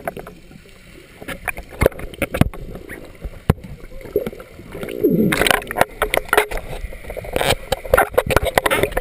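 Muffled underwater sound through a diving camera's housing: scattered knocks and taps of hands and scuba gear against the housing, with a louder rush of bubbling and gurgling about five seconds in and again near the end.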